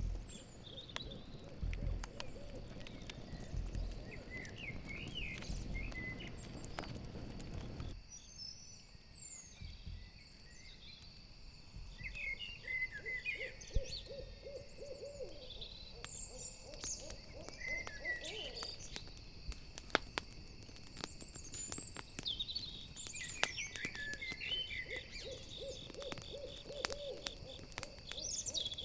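An owl hooting in two runs of low, quickly repeated hoots, over the sharp pops of a crackling campfire and the steady high trill of crickets, with scattered bird chirps. A low rumble cuts off suddenly about eight seconds in.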